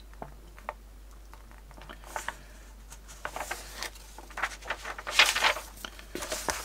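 Magazine pages being leafed through: scattered paper rustles and flicks, sparse at first and busier in the second half.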